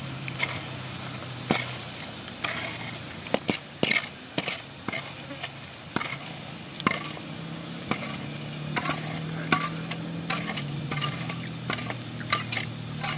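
Bamboo spatula scraping and knocking against a metal frying pan while fried jengkol slices are pushed out into another pan: an uneven run of clicks and knocks, several of them sharp and loud.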